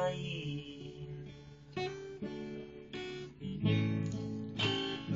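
Acoustic guitar strumming chords between sung lines; a sung word trails off at the start, then several strummed chords ring out, the loudest about three and a half seconds in.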